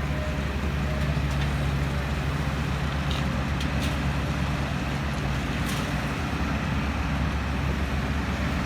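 Heavy diesel engines of construction machinery running steadily, a low continuous hum, with a few faint clicks about three seconds in and again near six seconds.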